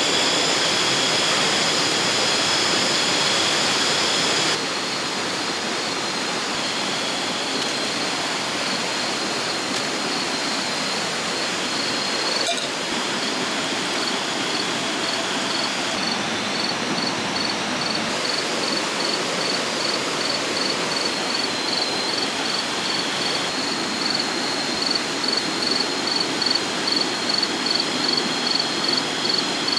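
River water rushing steadily, with insects trilling in high steady tones over it. Near the end a cricket's high chirp pulses about twice a second, louder than the rest.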